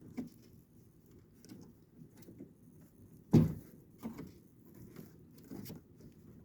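Kenmore (Whirlpool) 10,000 BTU window air conditioner running with a steady low hum, the thermostat not yet satisfied so it is still cooling. A few light clicks and one loud knock about three and a half seconds in.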